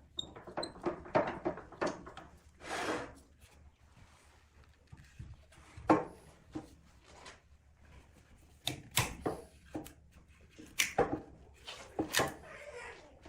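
Irregular knocks, clicks and short scrapes of wooden pieces being handled, with no steady machine tone.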